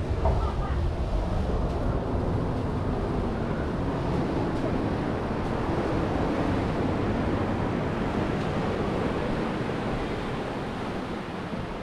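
Ocean surf breaking and washing up a sandy beach in a steady rush, with wind rumbling on the microphone, strongest in the first couple of seconds.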